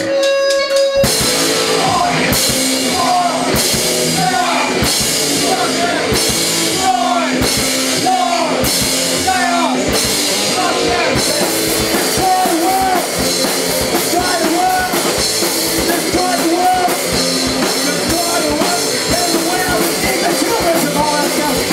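Live rock band playing loudly with drum kit, electric guitar and singing in a punk-rock style; after a held note, the full band comes in about a second in and keeps driving.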